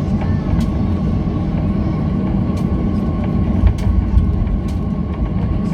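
Boeing 737-800 taxiing, heard from inside the cabin: its CFM56-7B engines running near idle with a steady whine over a loud low rumble from the engines and the wheels on the taxiway. Scattered light knocks and rattles come from the gear and cabin.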